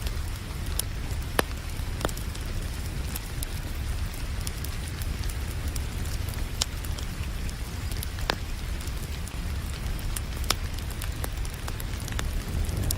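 Wood fire crackling in a fireplace, with irregular sharp pops scattered through, a few louder than the rest, over a steady hiss of rain.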